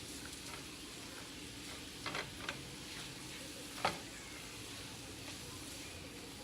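Ground beef frying in a pot with a steady sizzle as it is stirred, with a few sharp clicks of the spoon against the pot about two seconds in and again near four seconds.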